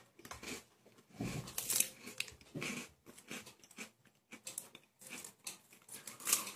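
Plastic wrapper of a small twist-wrapped treat crinkling in short, irregular bursts as it is twisted open, mixed with biting and chewing.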